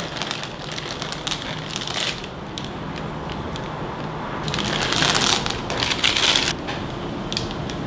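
Crinkling of a foil-lined chocolate-chip bag as the chips are shaken out into a bowl of pancake batter, with a spatula stirring them in. The crinkling is loudest for about two seconds past the middle.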